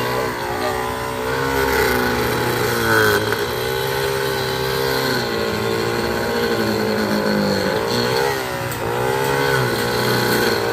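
Small engine of a hand-held railway tamping machine running hard and steadily, its pitch sagging and recovering several times as the vibrating tine is worked down into the track ballast under a sleeper.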